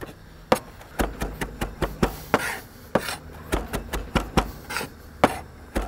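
Chef's knife chopping fresh parsley on a plastic cutting board: a run of uneven taps, about three a second, as the blade rocks down through the herbs, with a little scraping between strokes.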